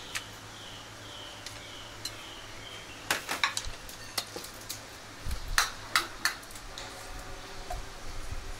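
Metal ladle and chopsticks clinking and knocking against an iron wok and china plates as stir-fried beef vermicelli is served out, in irregular sharp clinks, loudest about three seconds in and again around five to six seconds in.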